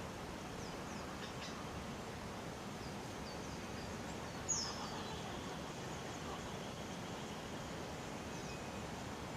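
Wild birds calling: short, high notes sliding downward, scattered over a steady hiss of outdoor background noise, with one louder note about halfway through.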